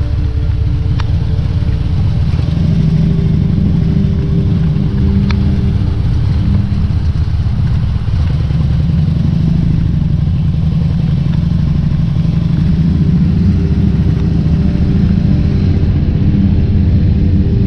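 Motorcycle engine running steadily as the bike pulls away and rides on, with two sharp clicks about a second in and about five seconds in.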